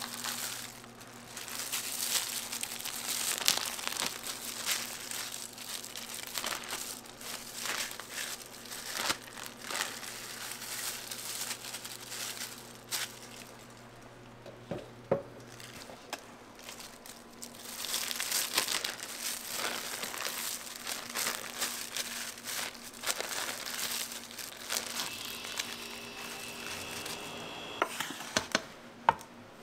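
Plastic cling film crinkling and rustling as it is pulled and wrapped around dough wound on wooden trdelník spits, in two long stretches with a quieter pause midway. A few sharp knocks come near the end.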